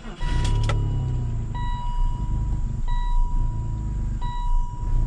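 BMW E39 530i's M54 inline-six starting and running unevenly, a low, fluctuating rumble that begins just after the start. A beep tone sounds repeatedly, about once every second and a half.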